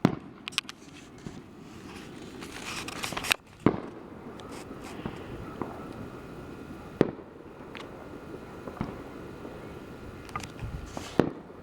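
Fireworks bursting: sharp bangs a few seconds apart, the loudest pair about three and a half seconds in, with a stretch of crackling just before them.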